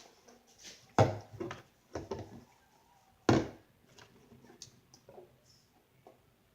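Sharp knocks and thumps of objects being handled, the loudest about a second in and again after about three seconds, with smaller knocks and clicks between.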